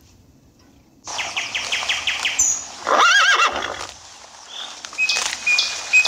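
A horse whinnying, starting about a second in: a quavering run of rapid pulses, then a high arching cry, with more calling toward the end.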